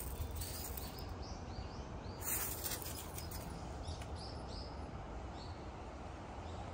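Small birds chirping, a run of short high arched calls repeating throughout, over a low steady background rumble, with a brief scuffing noise about two seconds in.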